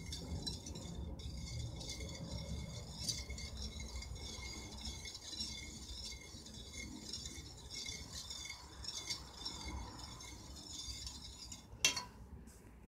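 Wire whisk stirring sugar and water in a stainless steel pot, its wires scraping and clinking lightly against the metal over and over while the sugar dissolves for syrup. A sharper knock comes near the end.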